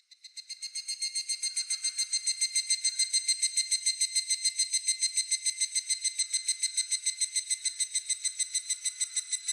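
Higurashi (evening cicada) calling: a fast run of high, ringing pulses, several a second, that swells in over the first couple of seconds and then holds steady.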